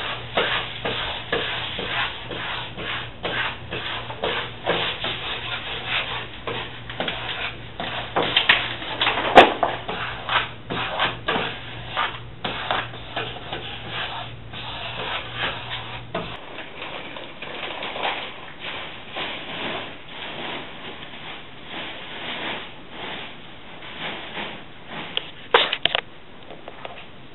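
Irregular rubbing and scraping as a self-adhesive wall mural is pressed and smoothed onto a wall by hand, with a sharper knock about nine seconds in.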